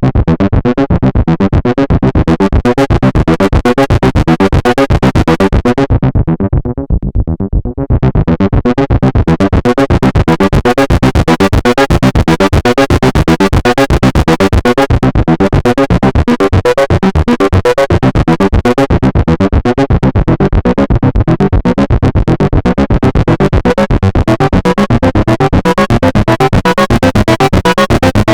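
Behringer Model D analog monosynth playing a fast, evenly repeating note sequence. Just before a quarter of the way in the filter closes down to a dull, muted tone, then opens again about two seconds later and the bright sequence carries on.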